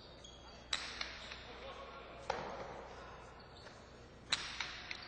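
Jai-alai pelota cracking against the fronton walls and cestas during a rally: three loud hits about a second and a half to two seconds apart, each ringing in the hall, with smaller knocks between them. A low murmur of voices runs underneath.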